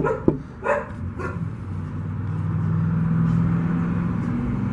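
A dog gives two short yips about a second in, followed by a steady low hum that grows slightly louder.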